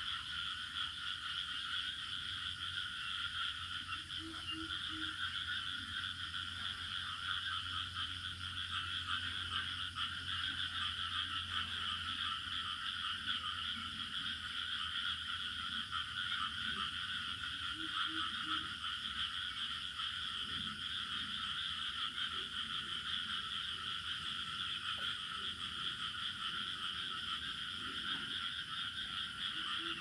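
Dusk chorus of frogs and crickets: a dense, unbroken trilling that holds steady throughout. Now and then a short low call of about three quick notes sounds through it.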